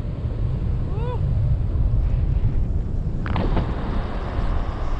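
Wind rushing over the microphone of a tandem paraglider in flight: a steady low rumble that grows stronger about three seconds in, with a short voiced cry about a second in.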